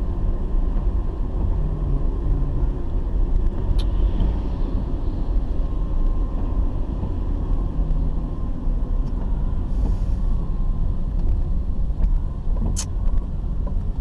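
Steady low rumble of a car driving on a wet road, engine and tyre noise heard from inside the cabin. Two brief sharp clicks come through, about four seconds in and again near the end.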